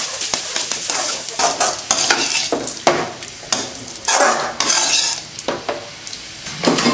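A spatula scraping and tossing shredded cabbage around a metal kadai, with oil sizzling under it as the cabbage stir-fries with salt over a low flame. The scraping strokes come in irregular bunches and ease off near the end.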